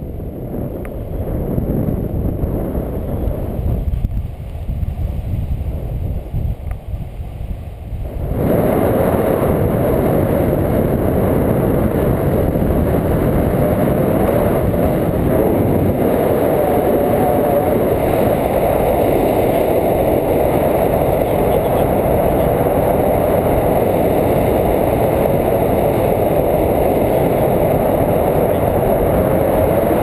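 Wind rushing over the microphone of a pole-held camera in flight under a tandem paraglider: a steady rush that gets louder and fuller about eight seconds in.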